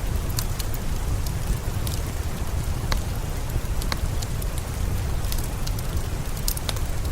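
Steady rain with a deep low rumble, mixed with scattered sharp crackles and pops of a wood fire in a fireplace.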